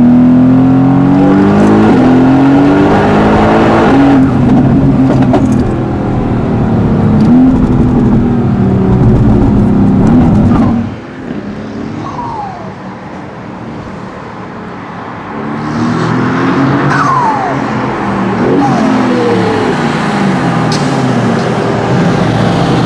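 PP-Performance-tuned twin-turbo V8 of a Mercedes-AMG GT S accelerating hard, its pitch climbing through several upshifts. About eleven seconds in the throttle closes and the level drops sharply, with thin falling whistles from the turbos spooling down; the engine then pulls again, with another falling whistle.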